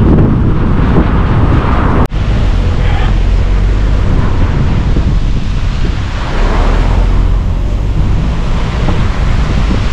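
Wind buffeting the microphone at a moving car's open window, a dense low rumble mixed with road noise. It breaks off for an instant about two seconds in.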